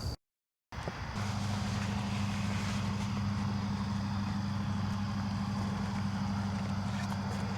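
After a brief cut to silence, a steady low mechanical hum sets in and holds, with a faint hiss above it.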